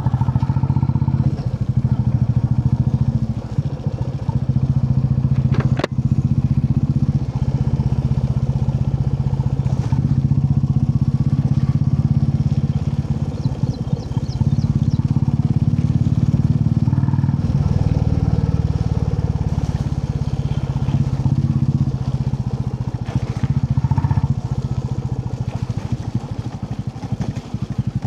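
Royal Enfield Classic 350's single-cylinder engine running on the move, a steady low exhaust beat that dips briefly a few times as the throttle eases. A single sharp knock about six seconds in.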